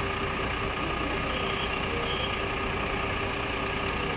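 Vehicle engine idling steadily, a constant hum that does not change.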